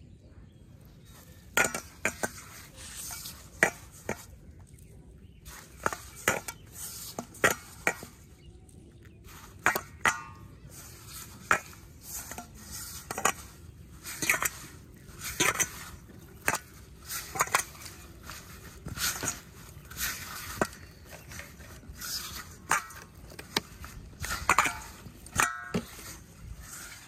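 Hands mixing and kneading flour into fishing-bait dough in a stainless steel bowl, with irregular sharp clinks and knocks against the metal bowl throughout.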